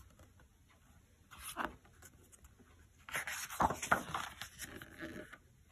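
A stiff board-book page being handled and turned, a brief rustle about a second and a half in, then about two and a half seconds of paper rustling and light taps as the page turns over from about three seconds in.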